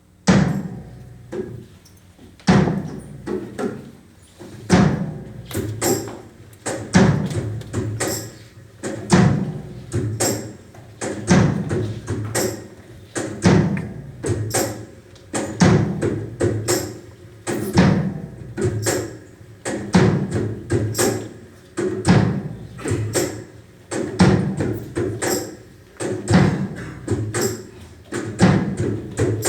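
Percussive music with a steady, repeating beat of deep thuds and lighter wood-block-like taps, starting suddenly.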